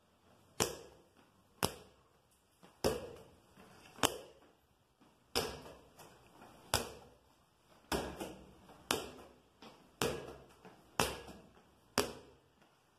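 A handball dribbled by hand on a tiled floor: about one bounce a second, each a sharp thud with a short echo off the bare walls.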